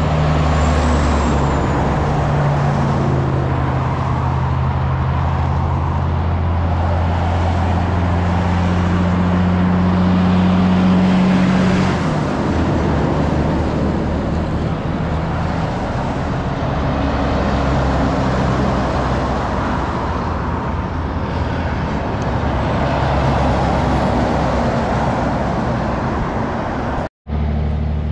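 Highway traffic with heavy road-train trucks: a steady diesel engine drone under tyre and wind noise, growing louder until about twelve seconds in and then easing off before it comes back. The sound cuts out for a moment near the end.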